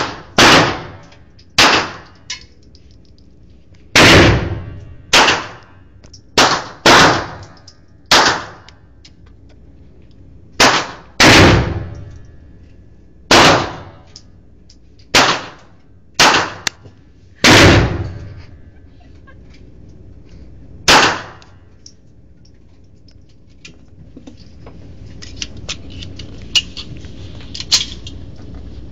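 Something metal being struck hard over and over, about sixteen loud clangs, each with a short ringing decay, coming at uneven intervals and stopping about 21 seconds in. A quieter hiss with a few faint ticks follows.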